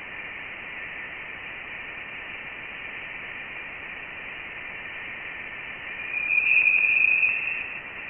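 Voyager 1 Plasma Wave Science instrument data played as audio: a steady hiss with faint tones around 2 kHz, then a louder, higher tone about six seconds in that lasts about a second. The tones are electron plasma oscillations, the evidence that Voyager 1 had left the heliosphere for denser interstellar plasma.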